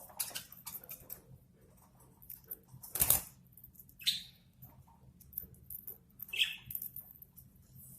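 Budgerigars pecking and cracking food: a run of small clicks and taps, with one louder knock about three seconds in and two short chirps about four and six seconds in.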